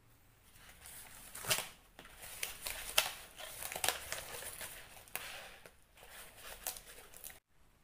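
Crinkling and rustling of something being handled, with several sharp crackles, cutting off abruptly near the end.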